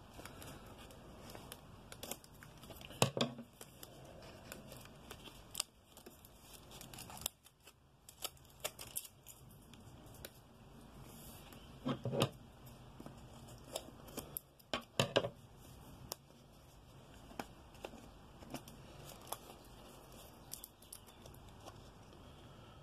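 Scissors snipping and plastic packaging being cut, torn and peeled off a rolled diamond-painting canvas: many small scattered clicks and crinkles, with a few louder knocks about three, twelve and fifteen seconds in.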